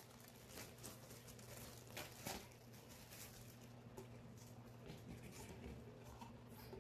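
Faint handling noise: a few soft rustles and light clicks of plastic as the air purifier's parts and wrapping are handled, over a low steady hum.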